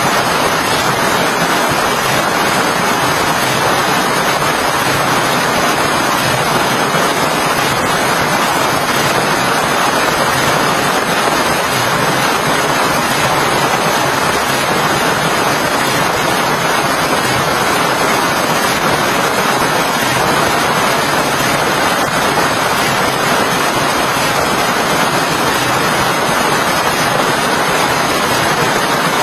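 Steady heavy rain, an even loud hiss that holds without change or break.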